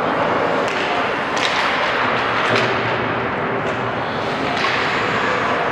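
Ice hockey game in a rink: steady rink and spectator noise with several sharp knocks of sticks, puck and players against the boards and ice.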